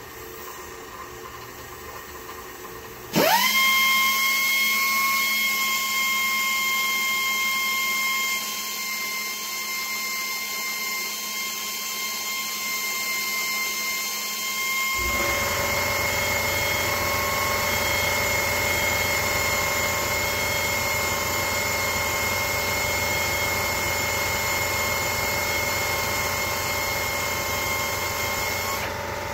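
Drill press running, spinning a VW intake valve, then about three seconds in a belt file sander starts with a quick rise to a steady high whine. From about halfway through a rough grinding joins it as the sanding belt is pressed against the spinning valve head, back-cutting it.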